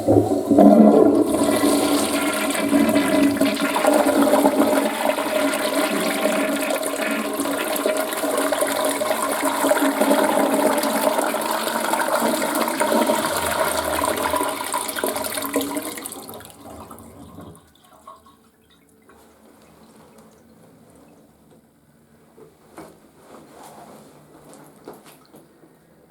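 Western-style toilet flushing: a loud rush of water that starts abruptly and runs steadily for about sixteen seconds, then dies away, leaving only a few faint clicks.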